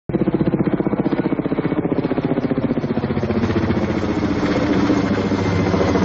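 Firefighting helicopter flying overhead, its rotor beating in a fast, even chop of about eight beats a second, smoothing out somewhat after about three seconds.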